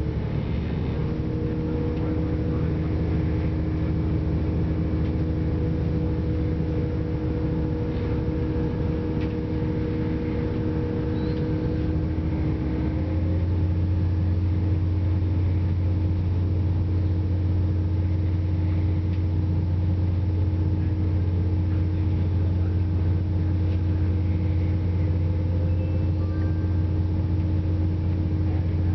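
Class 168 diesel multiple unit heard from inside the passenger saloon: a steady low drone of the underfloor diesel engine and running gear, with a higher steady tone over it. About thirteen seconds in, the drone shifts to a new, slightly louder note.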